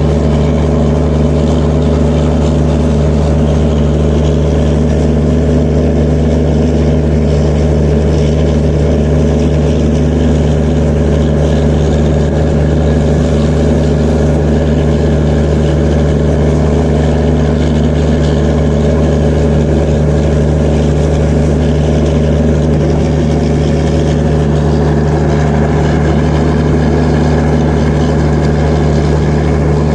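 Diesel generator sets in the generator car of an Indian Railways Humsafar Express running at constant speed: a steady engine drone with a deep hum that does not change.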